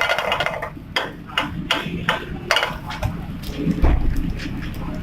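A cooking utensil knocking and scraping against a pan as chopped vegetables are stirred in it: about a dozen irregular clicks and knocks, with a dull thump near four seconds in.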